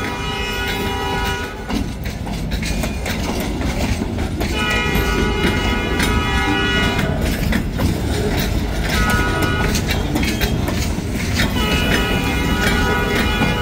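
Escanaba & Lake Superior freight locomotive's horn sounding the grade-crossing pattern of long, long, short, long over the steady rumble and clatter of the rolling train. This is the standard warning for a train approaching a road crossing. The first long blast ends about a second and a half in, the short one comes about nine seconds in, and the last long blast is still sounding at the end.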